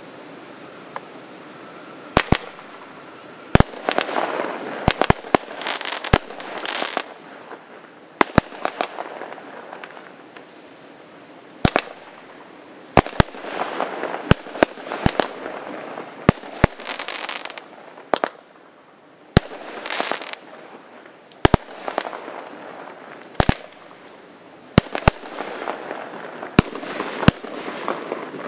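A 26-shot firework cake firing shot after shot: sharp bangs come irregularly, often in quick pairs, about a second or so apart. A noisy hiss swells up between the reports.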